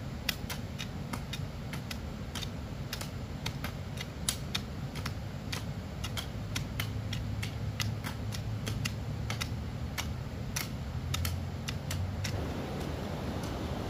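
An irregular run of sharp taps and clicks, about two or three a second, over a low steady hum.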